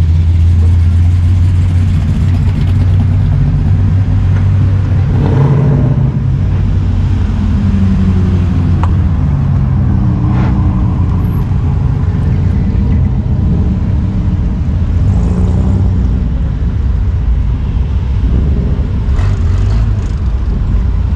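Classic cars and a pickup rolling past one after another at low speed, their engines making a steady, deep exhaust rumble that shifts in pitch as each vehicle goes by.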